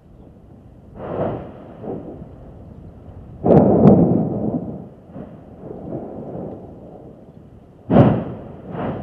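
Strombolian explosions from Mount Etna's Southeast Crater as it throws out lava: four blasts, the loudest about a third of the way in and lasting over a second, a sharp one shortly before the end, over a low steady rumble.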